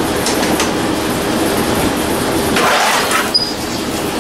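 White riding mower's engine turning over on the electric starter, a steady rhythmic churning, cranked to see how much fuel it pushes out. A short hiss comes about two and a half seconds in.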